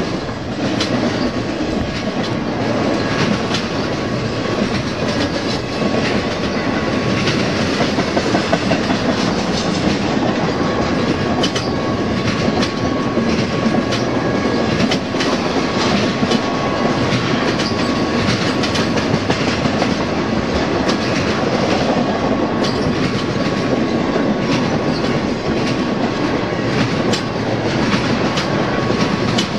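Intermodal freight train cars loaded with truck trailers rolling past close by: a steady rumble with the repeated clickety-clack of wheels over the rail, and a faint steady whine running under it.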